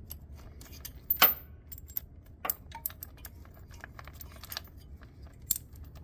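Steel lifting chain and a bolt and washer clinking in the hand as the chain is rigged to an engine for a hoist lift: irregular metal-on-metal jingles, the loudest a little over a second in.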